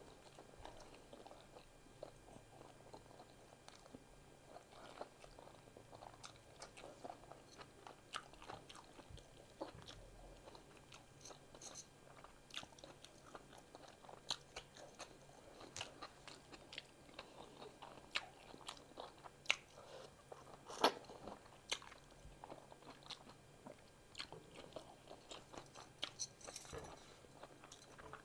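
Faint chewing of a mouthful of cheddar hot link sandwich, with many small irregular clicks; the sharpest click comes about 21 seconds in.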